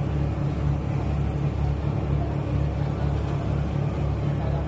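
Engine of a river launch boat running at steady cruising speed, heard from on board as a constant low drone.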